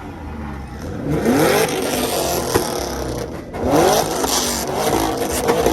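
Car engine revved hard twice, the pitch climbing steeply about a second in and again near the middle, then held at high revs before dropping back.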